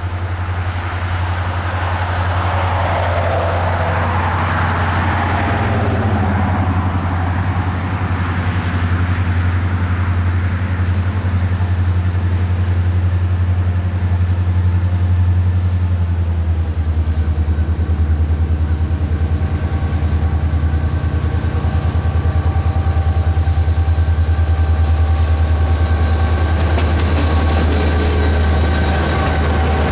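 Diesel-electric freight locomotive, an EMD SD40-2 with its 16-cylinder two-stroke turbocharged engine, approaching at track speed with a steady low rumble that slowly grows louder as it nears and passes.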